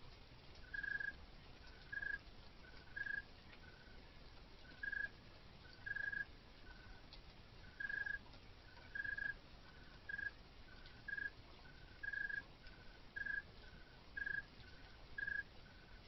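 Repeated short, high chirps from a calling animal, about one a second, each strong chirp alternating with a fainter, slightly lower one.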